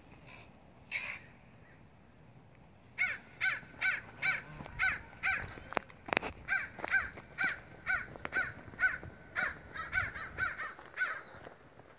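A flock of domestic geese honking in a rapid, regular series, about two or three honks a second. The honking starts about three seconds in and tails off near the end.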